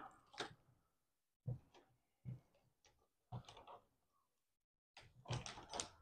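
Faint, scattered clicks and rustles of wires and plastic connectors being handled and pulled apart in a Toyota Prius Gen 3 inverter wiring harness, with a short, slightly louder cluster of clicks near the end.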